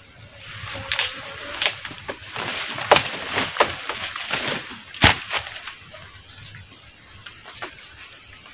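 Dry banana leaves and the bunch crackling and rustling as they are handled, a quick run of sharp snaps and crackles over the first six seconds, the loudest about five seconds in, then quieter.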